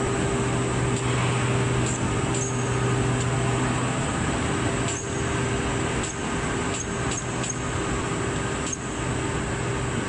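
Steady machine hum and rushing noise of a thermal-bonded wadding production line's fibre-feeding machinery. The lowest part of the hum drops away about four seconds in, and several short sharp clicks follow in the second half.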